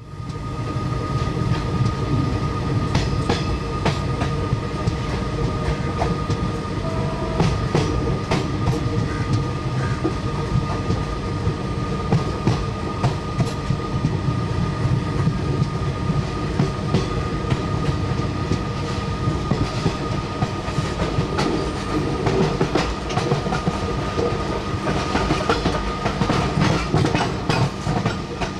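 Passenger train running, heard from aboard: a steady low rumble with the wheels clacking over rail joints, the clacks thickest near the end, over a steady high whine.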